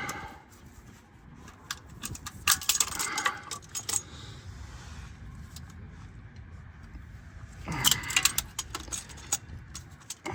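Light metallic clinking and rattling in two short bursts, about two and a half seconds in and again near the end, from handling the parts while twisting the oil filter into place.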